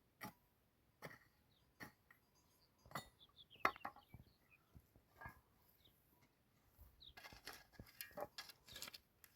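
Scattered sharp knocks and clinks, about one a second at first, then a quick clatter of them near the end.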